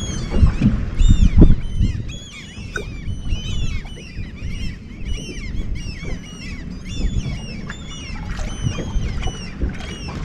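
A flock of seabirds calling over a surface boil of baitfish, dozens of short high calls overlapping without a break. A low rumble of wind and water sits beneath, heaviest in the first second or so.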